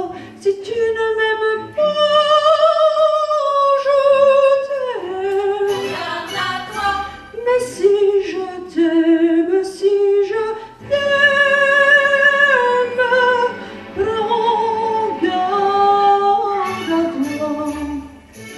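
Female vocal group singing a cappella, one voice through a microphone leading over the others, with notes held long and moving from one to the next.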